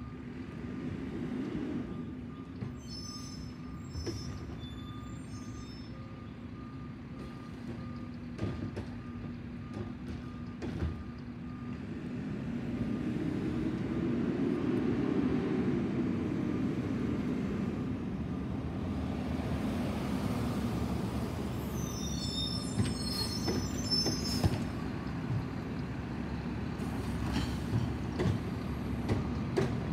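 Garbage truck running as it moves along the street, its diesel engine swelling louder for a few seconds midway. High-pitched brake squeals come twice, once early and once in the second half, and a faint repeated beeping runs through the first half.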